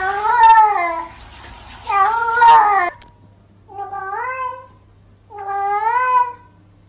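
Cats meowing in drawn-out, word-like calls that rise and fall in pitch: two long calls in the first three seconds over a hissy background, then, after a pause, two shorter meows from another cat.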